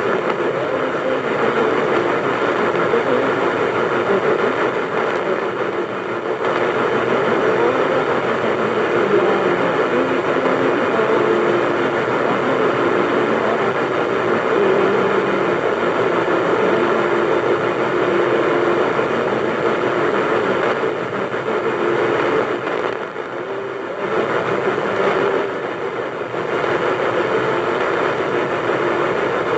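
AM radio tuned to 1450 on a Sony boombox, giving out steady static from distant thunderstorm lightning. The signal fades and dips a few times, most deeply a little past two-thirds of the way through.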